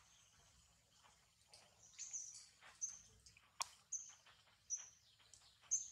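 A small bird chirping: short, high chirps repeating about once a second from about two seconds in, with one sharp click near the middle.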